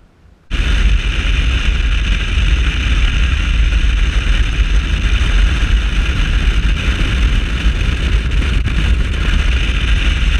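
Bass boat running fast across open water: loud wind rush on the microphone over the outboard motor. It starts abruptly about half a second in and stays steady.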